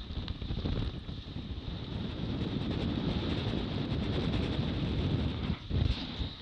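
Wind buffeting the microphone on a small outboard-powered skiff running fast through choppy water, over the steady noise of the outboard motor and water rushing along the hull. There is a short lull and a gust near the end.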